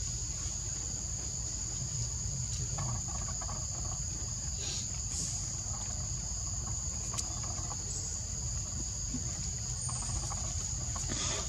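Steady high-pitched drone of forest insects, an unbroken chorus at two close pitches, over a low rumble, with a few faint clicks.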